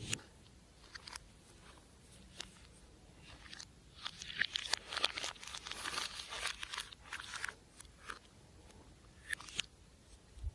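Slime being worked by hand: scattered sticky clicks and crackles that thicken into a dense run of crackling from about four to seven and a half seconds in.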